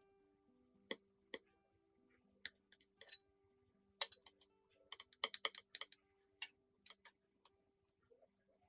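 Metal knife and cake server clicking and clinking against a ceramic plate in a series of sharp, separate taps, the loudest about four seconds in and a quick run of them between five and six seconds.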